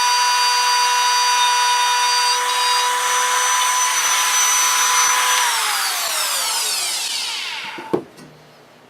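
1954 Rockwell/Beaver 8-inch table saw running with a steady whine, then switched off and spinning down, its whine falling in pitch over a couple of seconds. A single sharp knock comes near the end.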